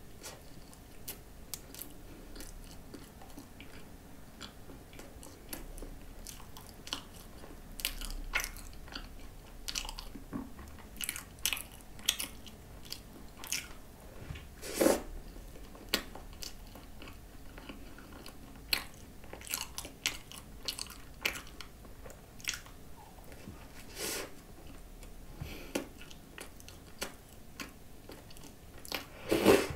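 A person biting into and chewing a flaky cream croissant topped with whipped cream. There are scattered crisp crackles of pastry throughout, the loudest about 15 seconds in and just before the end.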